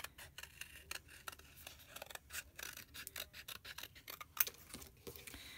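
Scissors snipping through thin cereal-box cardboard in many short, irregular cuts, a few a second, with one louder snip a little over four seconds in.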